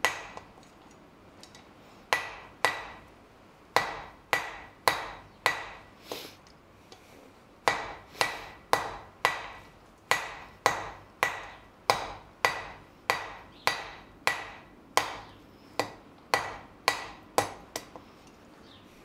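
Hand hammer striking a hot steel bar on an anvil, drawing out a taper: runs of sharp blows about two a second, each with a short ring, broken by brief pauses.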